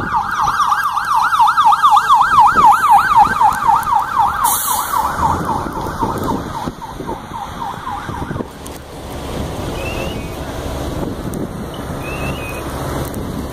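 Fire engine siren on a fast yelp, its pitch rising and falling about three times a second, cutting off about eight seconds in; a steady low noise remains after it.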